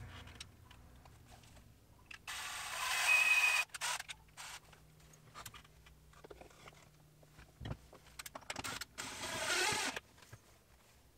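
Cordless drill running in two short bursts, the first about two seconds in with a steady motor whine, the second near the end as it bores into the painted OSB wall sheathing. A few faint clicks and knocks fall in the near silence between.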